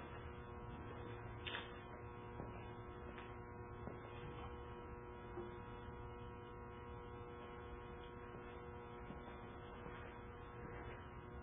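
Faint steady electrical hum with several fixed tones, broken by a few soft clicks.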